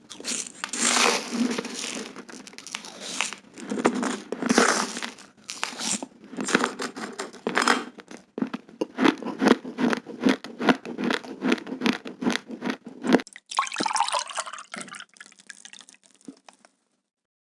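Close-miked crunching of raw, uncooked rice grains being chewed, a dense run of rapid crunches. About thirteen seconds in the sound changes to a softer, grainier texture, and it stops about three seconds later.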